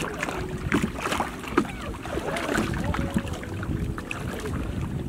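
Wind rumbling on the microphone over water around a small boat, with a few light clicks and knocks scattered through.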